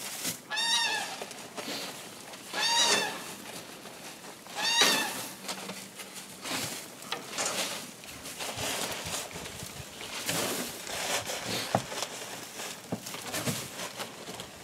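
A hen squawks three times, about two seconds apart, in drawn-out protesting calls. After that comes soft rustling and crinkling as wood shavings are scooped by hand out of a shavings bag.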